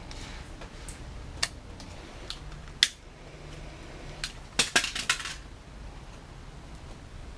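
Sharp clicks and clinks of small hand tools and hard parts being handled: a few single clicks, then a quick clatter of several about four and a half seconds in.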